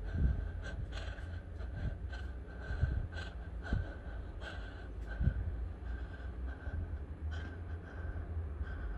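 A person breathing unevenly in short, irregular breaths, over a steady low rumble with a few soft thumps.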